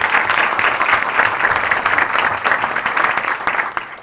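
An audience clapping, a dense, steady round of applause that dies away at the end.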